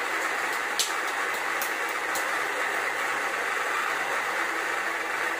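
The small electric motor of a toy pottery wheel running steadily, whirring as it spins wet clay under the potter's hands. A few sharp clicks come in the first couple of seconds, the loudest about a second in.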